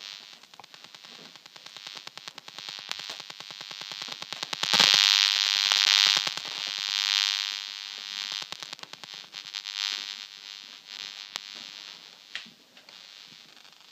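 Radio pulses from a DECT cordless phone base station, picked up by a homemade LM386 e-smog detector and played through its small speaker as a fast, even buzz. The buzz swells to its loudest about five seconds in, then fades.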